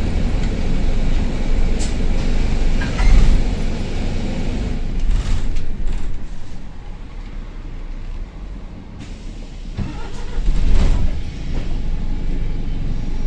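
Bus diesel engine running while the bus drives, heard from the upper deck, with the blowing note of a burst turbo exhaust. The engine swells louder about three seconds in and again near the end, and is quieter in between.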